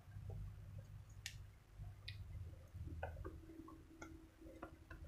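Plastic vapour-barrier sheet being peeled away from the sticky black butyl sealant on a car's inner door panel: faint scattered clicks and tacky crackles over a low steady hum.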